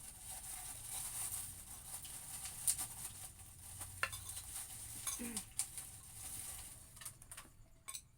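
Close-up eating sounds: wet chewing of melon with scattered small clicks and ticks.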